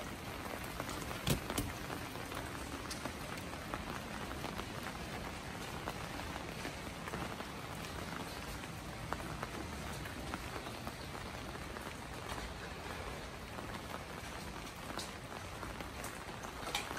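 Steady rain falling on wet streets and surrounding surfaces: a continuous hiss with scattered individual drop ticks.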